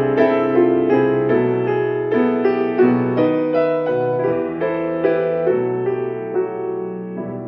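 Grand piano playing the slow closing bars of a piece, notes struck and left ringing, growing gradually softer toward the end.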